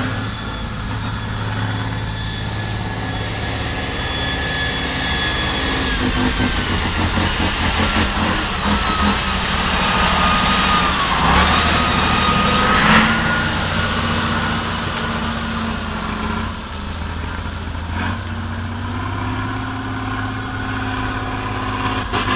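Tatra trial truck's diesel engine working hard under load, with a high whine in its note. About halfway through the truck passes close and the engine is loudest, and the whine dips in pitch, then rises again.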